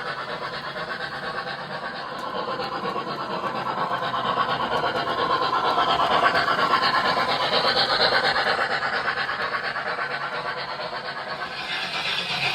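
O gauge model train running on the layout track, its wheels and the locomotive's sound unit making a steady, quick rhythmic rumble that grows louder toward the middle and fades again as it passes.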